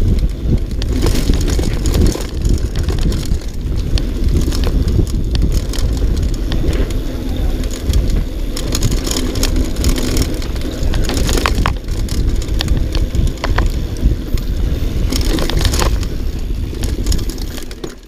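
Downhill mountain bike riding fast over a rough dirt trail: a continuous rumble of tyres on dirt and roots, with constant rattling and sharp clatters from the bike and wind noise on the microphone.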